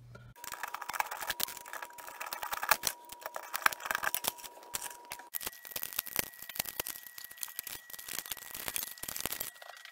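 Screwdriver working the terminal screws of an electrical outlet to free the wires: a dense run of quick metallic clicks, scrapes and rattles. A faint steady tone runs underneath and jumps higher a little past halfway.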